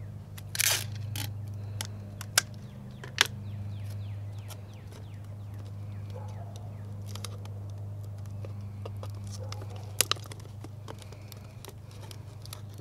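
Scotch tape pulled and torn from its dispenser and pressed around a cut plastic bottle: a short tearing rip about half a second in, then scattered sharp clicks and crinkles of the thin plastic as it is handled.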